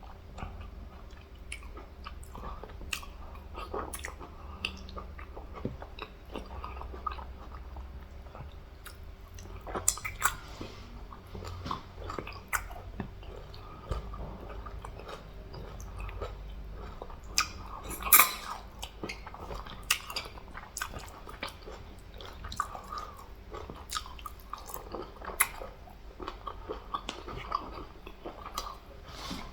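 Close-miked chewing and biting while eating fufu with soup and meat: irregular mouth clicks and smacks, with the loudest one about eighteen seconds in, over a low steady hum.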